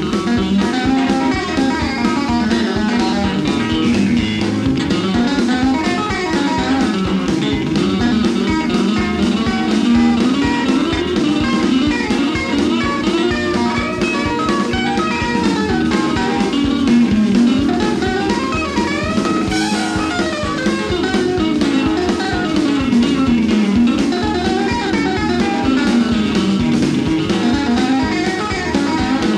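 Live band playing an instrumental rock-and-roll passage, electric guitars leading over drums with a steady beat.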